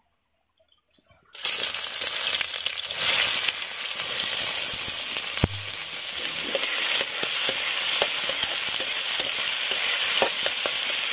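Chopped onions sizzling in hot mustard oil in a steel kadhai, the sizzle starting suddenly after about a second of silence and running on steadily. A metal spatula stirring and scraping the pan adds scattered clicks, with one sharp knock about halfway through.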